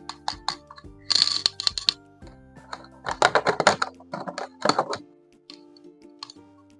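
Plastic toy packaging crinkling and clicking as it is handled and opened, in clusters about a second in and again in a longer run around the middle, over steady background music.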